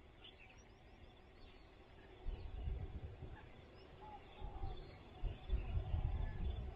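Outdoor ambience with faint, scattered bird calls and chirps. From about two seconds in, low rumbling gusts buffet the microphone and become the loudest sound.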